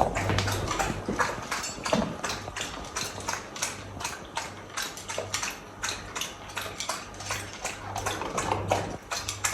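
A dog feeding at its bowl: quick clicks several times a second as it eats or laps.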